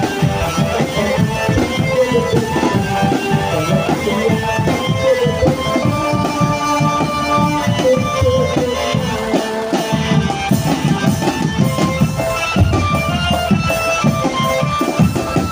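Drum band playing live: marching snare drums, tom drums and bass drums beating dense, steady strokes under a sustained melody line.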